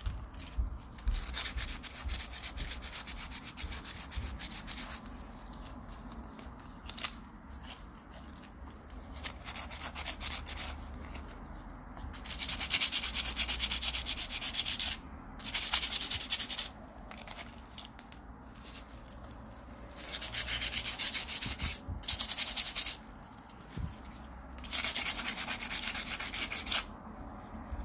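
Metal watch bracelet being sanded by hand on sandpaper: scratchy rubbing in repeated bursts of one to three seconds, with quieter scraping between them.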